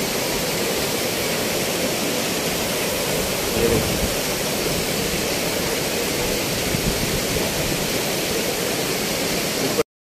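Tall mountain waterfall crashing onto rocks: a steady, unbroken rush of falling water that cuts off suddenly near the end.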